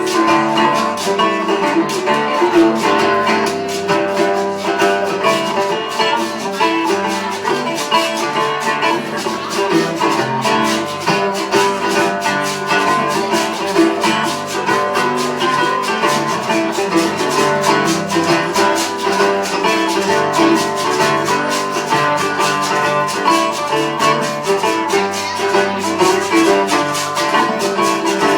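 Acoustic guitar music with no singing: strummed chords in a steady rhythm, an instrumental passage of a reggae song.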